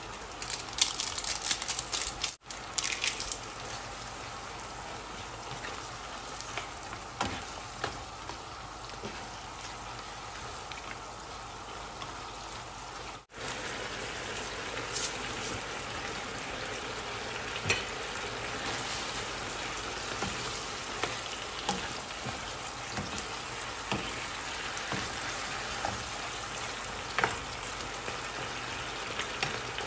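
Chicken pieces sizzling in a frying pan of simmering broth: a steady crackling hiss, with a denser flurry of crackles in the first few seconds and scattered clicks after.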